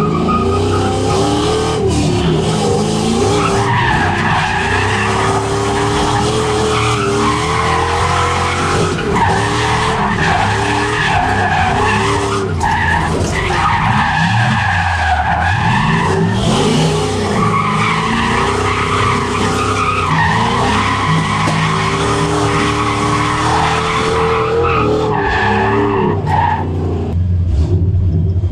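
SN95 Ford Mustang drift car heard from inside the cabin, its engine revving up and down repeatedly while the tires squeal through a drift.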